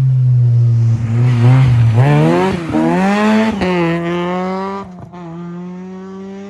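Rally car engine at high revs, holding a steady note, then climbing in pitch about two seconds in, dipping briefly and climbing again, then holding a higher steady note that grows quieter near the end.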